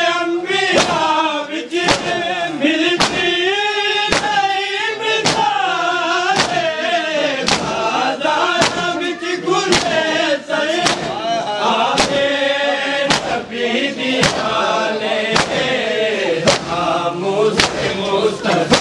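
Mourners chanting a noha, a Muharram lament, in a slow rising-and-falling melody, with sharp chest-beating strokes (matam) keeping an even beat of about one a second.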